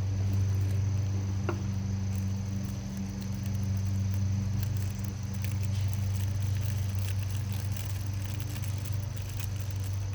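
Steady low hum, with scattered faint clicks and light taps of small parts being handled.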